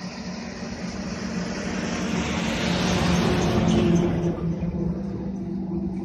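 Heavy truck's diesel engine running as the truck comes up the road, a steady low drone growing louder. A rush of road noise swells to a peak about three to four seconds in and then eases.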